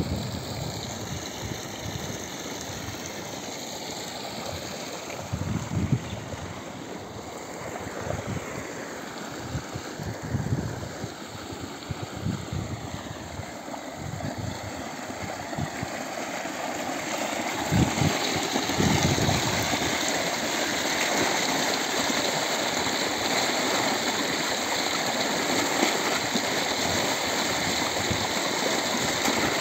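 Irrigation water gushing out of a pipe into a concrete outlet tank and rushing down a field channel. The rushing gets louder and fuller about halfway through. Scattered low thumps are heard in the first half.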